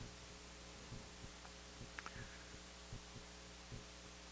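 Quiet, low, steady electrical hum on the recording, with faint soft low thumps about once a second and a tiny click about two seconds in.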